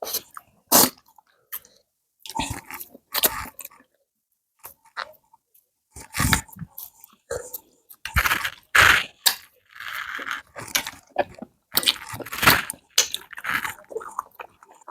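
Close-miked eating sounds: irregular bursts of chewing, smacking and crunching, separated by short silent gaps.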